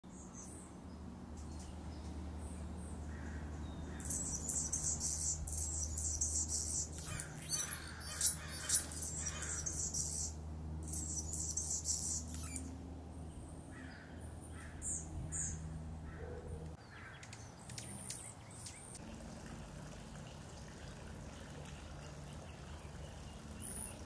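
Hummingbirds calling, Anna's and Allen's: short, thin, very high chip notes scattered throughout, with a dense, high stretch of song from about 4 to 12 seconds in. A low steady hum runs underneath and stops about 17 seconds in.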